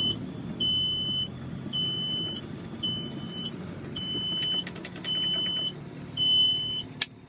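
An electronic warning beep repeating steadily, about once a second, over the low running of off-road vehicle engines. A sharp click comes near the end.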